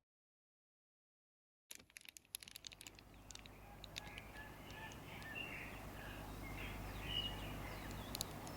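Faint chirping bird calls outdoors over a low steady background rumble, coming in after about a second and a half of dead silence and a few sharp clicks.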